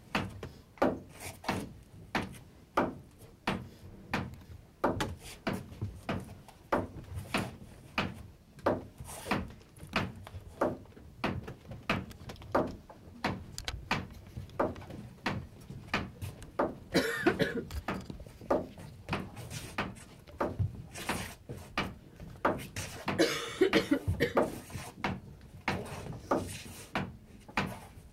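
A slow, steady beat of wooden knocks, about three every two seconds, with two louder, rougher noisy stretches partway through.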